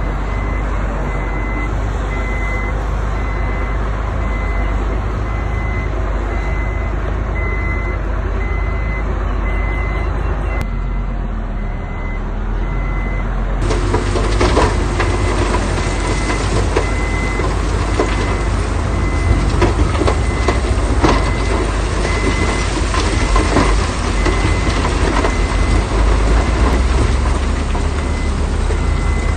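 Heavy construction machine's diesel engine running with its reversing alarm beeping at an even pace. About halfway through, a louder, rough clattering rumble joins in and carries on to the end.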